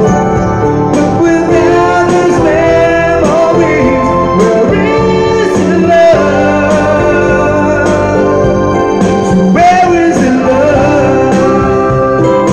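A man singing live into a microphone over an electronic keyboard playing sustained chords.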